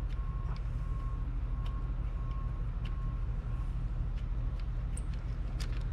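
Steady low machine hum in the workshop, with a few light clicks as brake parts are handled at the caliper.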